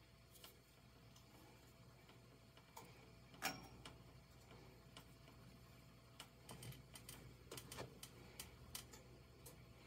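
Near silence: room tone with a few faint, scattered clicks, the sharpest about three and a half seconds in and a small cluster in the second half.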